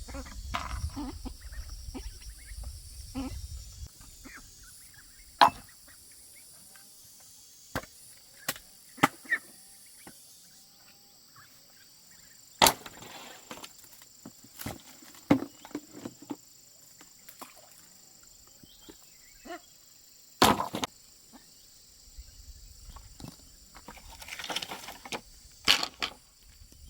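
Sharp knocks and clicks at irregular intervals, about a dozen in all, over a steady high insect drone, with low rumbling in the first few seconds and again near the end.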